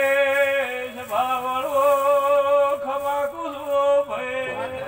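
A man singing a Gujarati devotional song in long, held notes, stepping from one sustained pitch to the next.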